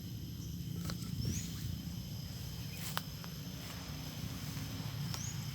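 Outdoor rural ambience: a steady high insect drone, with a bird giving a short rising chirp twice. Underneath is a steady low rumble, and a couple of sharp clicks near the start and in the middle.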